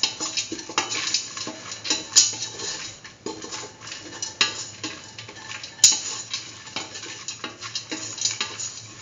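A utensil stirring and scraping a nearly dry mix of grated coconut and chickpea pieces around a metal pan as it sautés. The strokes are quick and irregular, with two sharper clinks of metal on metal, about 2 and 6 seconds in.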